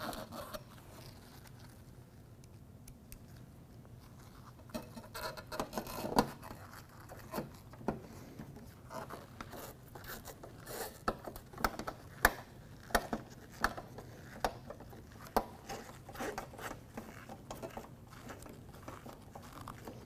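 Hand Phillips screwdriver driving screws through a metal mounting bracket into the sheet-metal top of a window air conditioner. It makes quiet scraping and irregular sharp clicks, sparse at first and more frequent after about five seconds.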